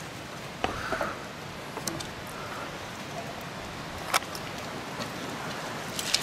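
Dry firewood sticks clicking and snapping against each other: a few sharp single clicks, then a quick cluster near the end as the bundle is set down on the ground. Underneath is a steady outdoor hiss.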